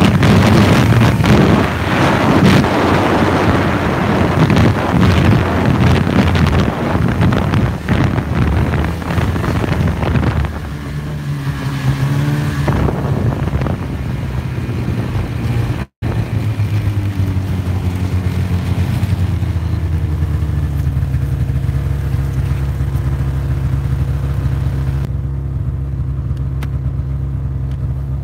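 Snowmobile engine running at trail speed under heavy wind buffeting on the phone's microphone; about ten seconds in the wind drops away as the machine slows, and through the second half the engine idles steadily. The sound cuts out for an instant near the middle.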